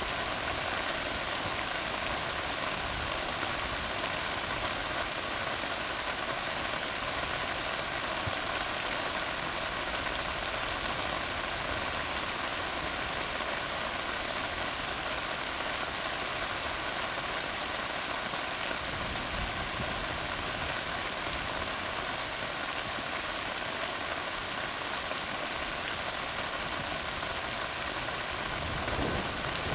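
Steady rain falling on a tar road, an even hiss at a constant level. A low rumble comes in near the end.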